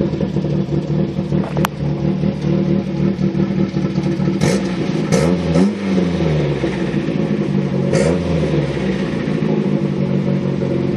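Callaway-turbocharged four-cylinder engine of a VW Rabbit GTI idling just after a start, heard from inside the car. It is revved twice: a rise and fall in pitch about five to six seconds in, and a shorter one about eight seconds in.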